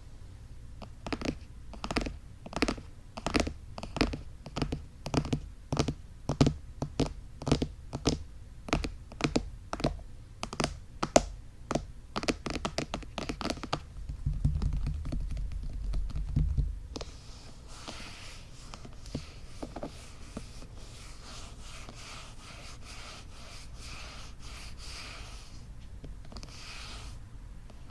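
Fingertips tapping on the ears of an ASMR microphone, about two taps a second, followed by a deep muffled rumble of handling for a few seconds and then soft, continuous rubbing and stroking of the ears.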